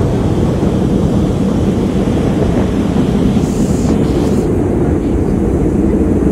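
Storm wind gusting against the microphone in a loud, steady low roar, with heavy rain hissing underneath.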